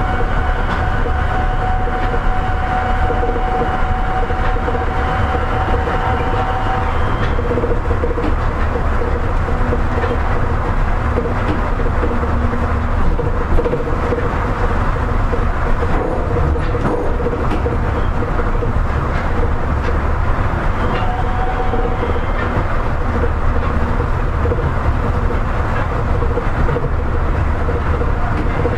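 Seibu 8500 series Leo Liner, a rubber-tyred automated guideway train with Hitachi IGBT-VVVF drive, running along the line: a steady rolling noise with the drive's steady whining tones, some of which drop away about seven seconds in.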